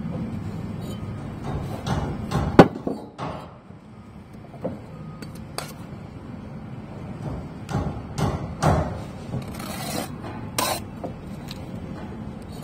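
Bricklaying: irregular clinks, knocks and scrapes of a trowel and clay bricks being handled and set, with the sharpest knock about two and a half seconds in.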